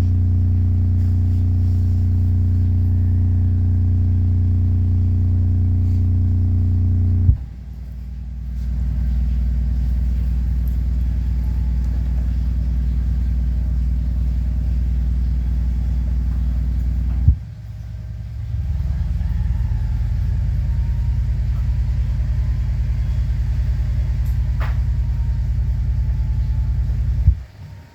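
MTX subwoofer, driven by a monoblock amplifier bridged at 2 ohms, playing deep steady bass: a loud low drone that changes twice with a sharp click, first dropping lower, then turning into a fast fluttering pulse.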